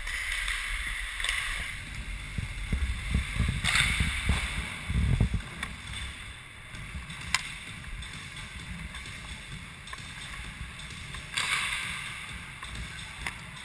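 Hockey skates scraping on rink ice in a few short hissing strokes, over the low rumble of wind and rubbing on a helmet-mounted camera's microphone. A single sharp tap comes about halfway through.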